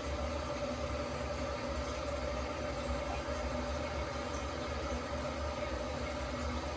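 Toilet fill valve running as the tank refills after a flush: a steady hiss with a constant humming tone.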